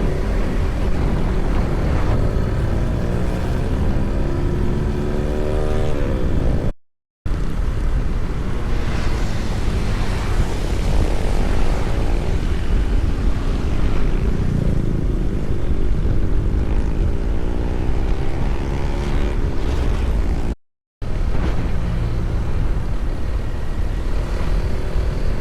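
A vehicle engine running under way, its pitch rising several times as it picks up speed, over a heavy low rumble of road and wind noise. The sound cuts out completely twice, for about half a second each time.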